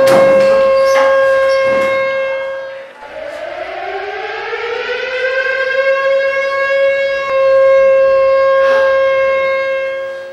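Alarm siren sounding for an earthquake drill: a steady wail that dies away about three seconds in, then winds back up in a rising glide to a steady tone again, fading near the end.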